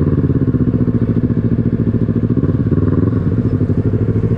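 Motorcycle engine running at a steady speed while being ridden, with an even, rapid beat of firing pulses.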